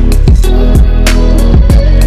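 Background music with a steady beat of about two drum hits a second over deep bass.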